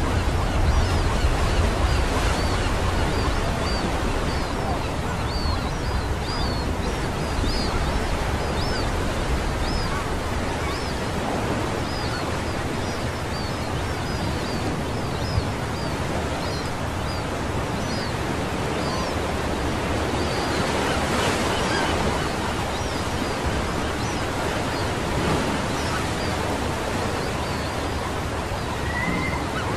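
Small sea waves breaking and washing up on a sandy beach, a steady surf hiss. Many short, high chirps repeat over it through most of the first twenty seconds.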